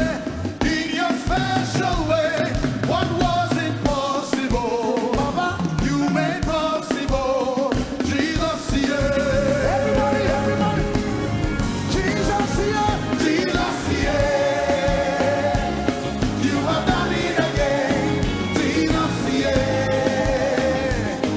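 Live praise and worship music: singing voices over a full band with a steady beat.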